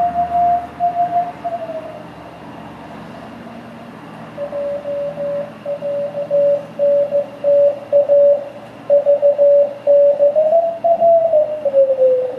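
Morse code (CW) signal received on an MB1 SDR transceiver: a keyed beat tone over band hiss from the radio's speaker. The tone slides down in pitch as the receiver is retuned, drops out for a couple of seconds leaving only hiss, then returns at a lower pitch and keeps keying, gliding up and back down near the end.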